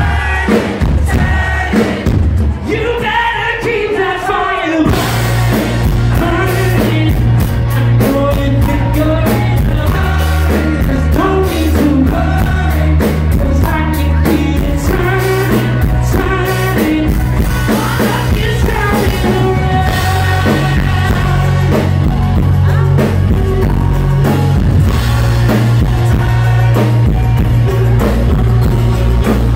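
Live rock band playing with a lead singer: for the first few seconds the voice carries over sparse backing, then the full band with drums and a heavy low end comes in about five seconds in.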